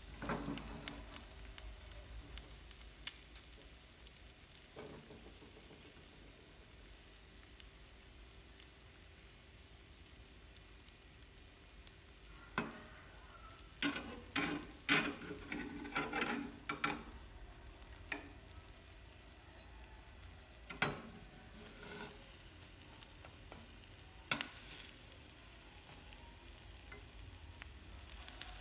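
Egg omelette sizzling steadily in a nonstick frying pan. A metal slotted spatula and wooden chopsticks click and scrape against the pan now and then, most busily around the middle.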